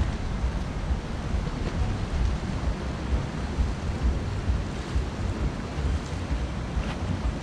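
Sea surf washing against a rocky shore, under a gusty low rumble of wind on the microphone.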